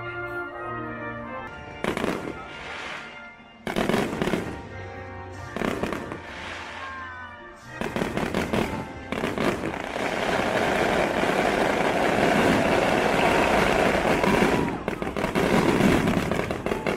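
Aerial fireworks bursting over music. There are a few separate loud bangs in the first six seconds. From about eight seconds in they run together into a dense, continuous barrage of bangs and crackle.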